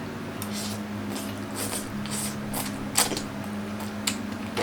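Soft, wet mouth sounds of someone chewing food close to the microphone: a scattering of short smacks and clicks. Under them runs a steady low electrical hum.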